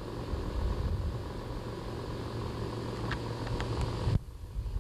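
Wind rumbling on the camcorder microphone over a steady low hum and hiss, with a few faint clicks; the noise drops off abruptly about four seconds in.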